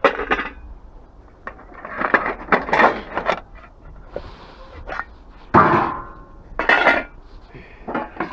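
Scrap metal clanking and clattering as pieces are handled, a string of separate sharp metallic knocks, one a little past halfway ringing on briefly.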